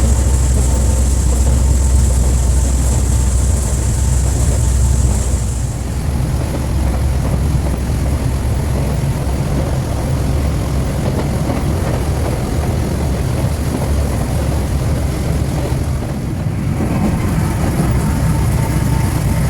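Open-air rail cart of the Amaterasu Railway running along the track, its engine and wheels giving a steady low rumble, with a thin high whine that stops about six seconds in.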